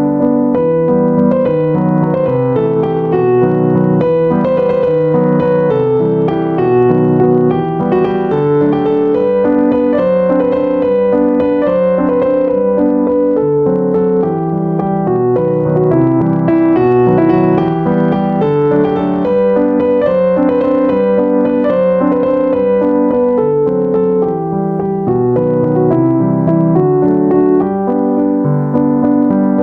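Background piano music: a continuous, steady piano piece.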